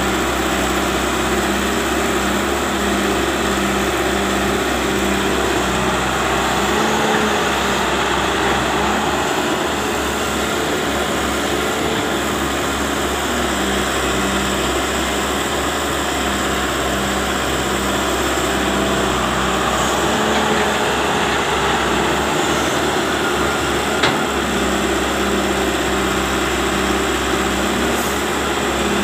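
Wheeled excavator's diesel engine running steadily under load as it digs and loads soil into a dump truck, with a single sharp knock about three-quarters of the way through.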